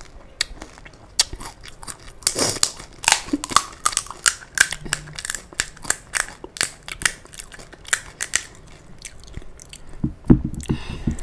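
Crisp panipuri (golgappa) shells crunching as they are chewed close to the microphone, a dense run of sharp crackles. Near the end come a few louder, deeper cracks as a hollow puri shell is broken open for filling.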